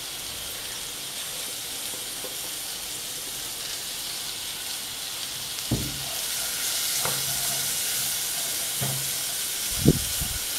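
Chopped beet stems, carrot greens and garlic sizzling in melted butter in a pot: a steady hiss that grows louder about six seconds in. A silicone spatula knocks lightly against the pot four times as the mixture is stirred.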